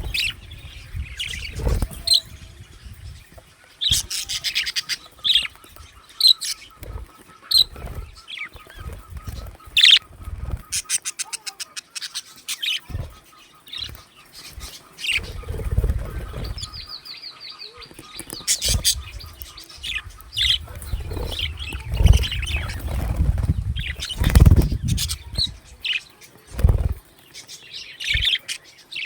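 Pet budgerigars chirping and chattering in short high calls, with a quick run of clicks about ten seconds in. Wing flutters and soft thumps come and go throughout.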